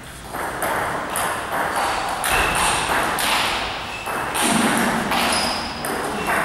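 Table tennis rally: a celluloid ball being struck back and forth, sharp pocks of ball on rubber-faced bats and on the table top, repeating throughout.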